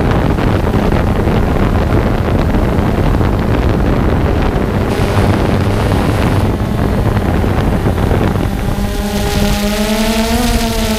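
Loud, steady rumbling noise. About eight and a half seconds in, a motor's hum joins it, its pitch rising slightly and settling back near the end.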